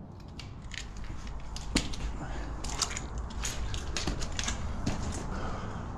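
Scrambling on slippery mud and limestone: irregular gritty scrapes and clicks of boots and hands on the rock, with one sharper knock a little under two seconds in, over a low handling rumble.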